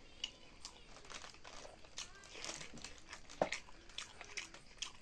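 A person eating a chicken tangdi kabab: biting, tearing and chewing the meat and skin, with irregular mouth clicks and crackles and one sharper click about three and a half seconds in.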